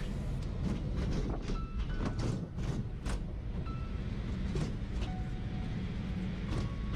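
SkyRide suspended pedal car coasting along its overhead rail track: a steady low rumble from the wheels with scattered clicks and clatters.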